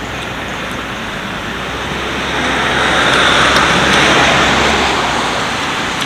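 A road vehicle passing: a steady rushing noise that swells about two and a half seconds in and fades again near the end.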